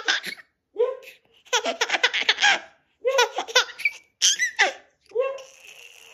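A seven-month-old baby laughing in repeated short bursts, with one longer run of quick laughs about a second and a half in.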